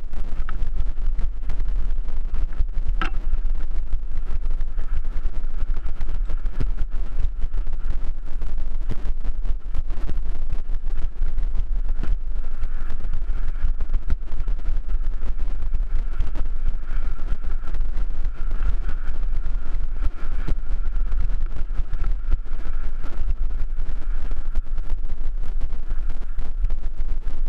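Wind buffeting a helmet camera's microphone on a fast mountain bike descent, with a steady low rumble and the bike rattling and knocking over the rough dirt trail. A sharp knock comes about 3 s in, and a thin steady whine runs through the second half.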